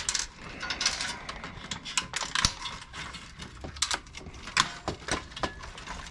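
Hand tools and small metal and plastic parts clicking and clinking irregularly as circuit boards are taken apart for scrap.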